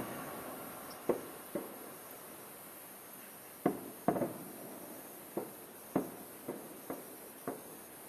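Distant aerial firework shells bursting: about ten sharp bangs at irregular intervals, each with a short echoing tail.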